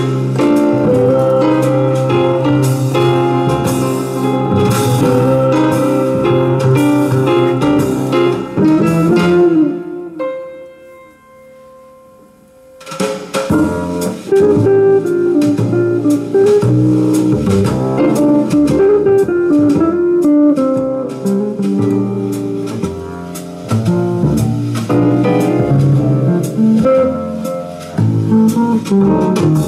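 Guitar-led music with drums, played from a DAT player through a freshly built TDA7297 amplifier board into a pair of speakers as a first listening test. About ten seconds in the music nearly drops out for some three seconds, then comes back at full level.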